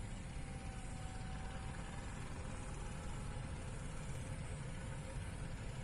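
Distant jet airliner, an Air India Airbus A321, taxiing along the runway: a steady low rumble from its engines at low power, with a faint thin whine over the first couple of seconds.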